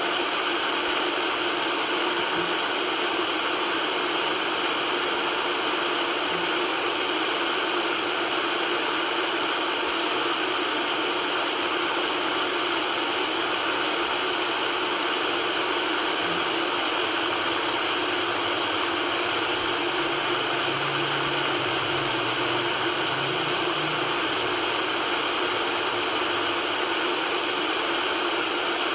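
Steady white noise: an even, unchanging hiss with little bass, played to calm a colicky baby.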